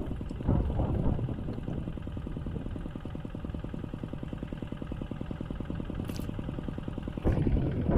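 Hand tractor engine plowing a paddy field, running steadily with an even, rapid firing beat. A louder rush of noise comes in near the end.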